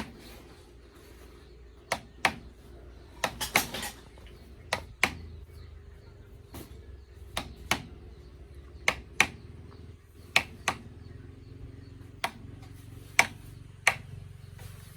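Hammer blows: sharp single knocks, often in pairs about a third of a second apart, with a quick run of strikes about three and a half seconds in.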